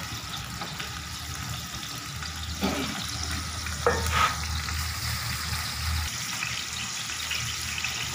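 Sliced onions sizzling steadily in hot oil in an aluminium cooking pot, stirred now and then with a steel ladle.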